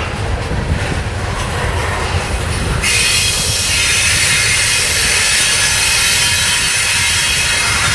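Coal hopper cars of a slow freight train rolling past with a low rumble and clatter of wheels on rail. About three seconds in, a high-pitched wheel squeal starts suddenly and keeps going.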